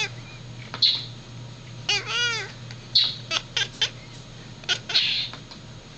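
Domestic cat making odd baby-like calls at a bird: a string of short, sharp chirps and one longer arched mew about two seconds in.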